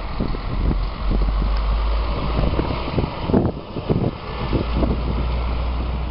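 Storm wind blowing hard across the microphone, with a strong low rumble that swells and eases, and many short knocks scattered through it.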